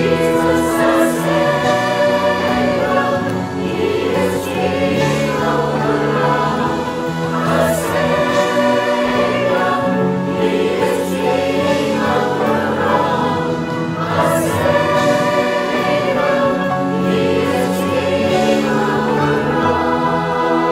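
Mixed-voice church choir singing in harmony, accompanied by piano, drums, guitar, violin, clarinets and saxophone.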